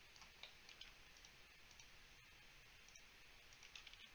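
Faint, irregular clicks of a computer mouse over near-silent room tone, as edges are selected one after another.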